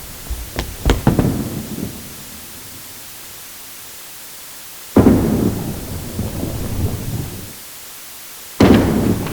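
Bowling ball striking pins, three times. Each strike is a sudden crash followed by about two seconds of rumbling clatter. The first starts with several sharp clicks about a second in, the second crash comes about five seconds in, and the third near the end.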